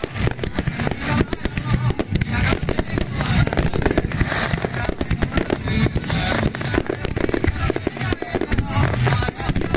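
Aerial firework shells bursting in quick, unbroken succession, a dense run of bangs and crackles, with music playing along.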